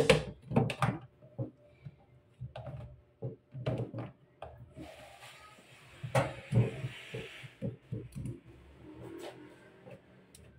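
Plastic knocks and clicks as a filter housing wrench is worked against a water purifier's clear plastic filter housing to unscrew it; the wet housing makes the wrench slip. A soft hiss runs for a couple of seconds in the middle.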